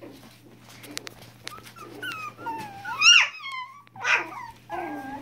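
Pomeranian–Yorkie mix puppies play-fighting: small growls, then high whimpers that slide up and down, the loudest about three seconds in, followed by a short yip.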